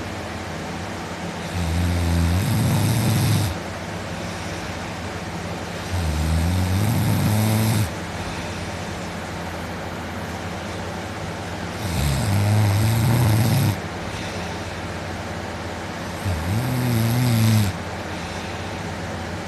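A man asleep on his back snoring loudly: four long, low snores a few seconds apart, each lasting about two seconds.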